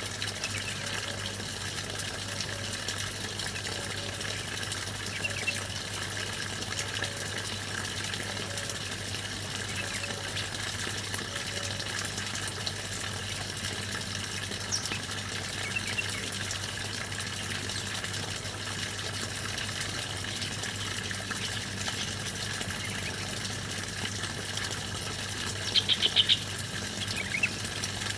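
Steady rush of flowing water with scattered short, high bird chirps over it. A quick run of louder chirps about 26 seconds in is the loudest moment.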